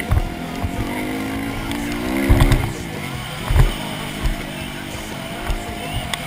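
Dirt bike engine running under throttle from the riding bike itself, revving up about two seconds in and then dropping back. Wind buffets the microphone and low thuds come through from the bumps.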